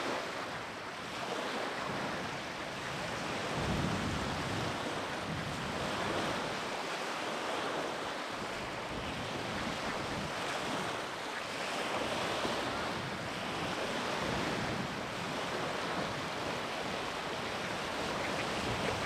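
Wind blowing across the camera microphone outdoors: a steady rushing noise with low buffeting gusts every few seconds.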